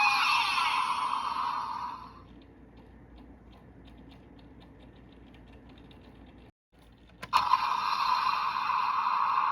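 Electronic sound effects from the DX Memorial Gotcha Igniter transformation-belt toy. A loud hissing effect fades out over the first two seconds and is followed by a quiet run of small plastic clicks as the toy is handled. A sharp click follows, and a new loud hissing effect starts about seven seconds in.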